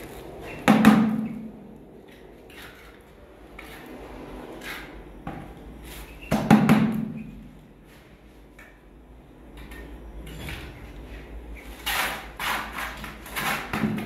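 Heavy plastic bucket tipped and rocked on its rim over bitumen membrane on a concrete floor. There are two dull thumps about five seconds apart, then a quick run of knocks near the end.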